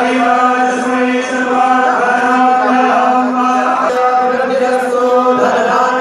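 Hindu aarti hymn chanted and sung in long, held notes, continuous and loud.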